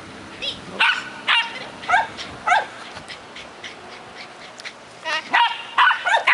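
A dog barking in short, sharp barks: a run about every half second, a pause of about two seconds, then a quicker flurry near the end.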